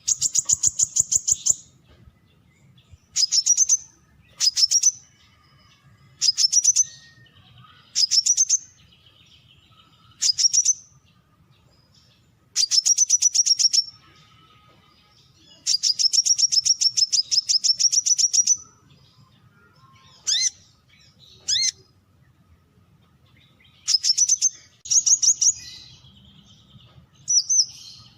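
Brown-throated sunbird calling: repeated bursts of rapid, sharp, high-pitched notes, each burst a second or two long, coming every couple of seconds. A few short rising notes come about twenty seconds in.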